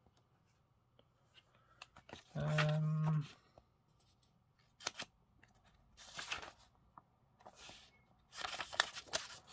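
Pages of a paperback book being leafed through, with short papery rustles now and then that grow busier near the end. A person hums briefly about two and a half seconds in.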